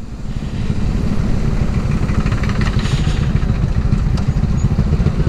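Motorcycle engine running steadily while being ridden, a dense, even low rumble.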